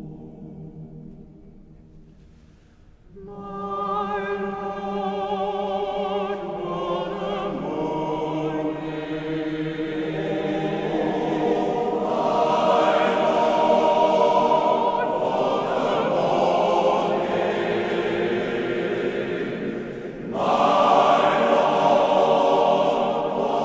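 Male voice choir singing with accompaniment. A held chord fades out over the first few seconds, then the choir comes in about three seconds in and gradually builds, with a louder entry near the end.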